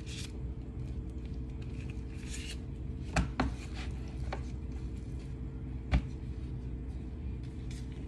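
Knife and raw chicken being handled at a kitchen counter: a few sharp knocks, the loudest about three seconds in and again about six seconds in, with brief soft rustling of plastic gloves, over a steady low hum.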